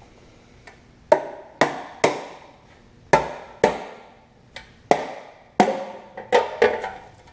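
Sharp knocks of a hammer on a metal engine part during a Chevy engine teardown: about ten blows at uneven intervals, each ringing briefly.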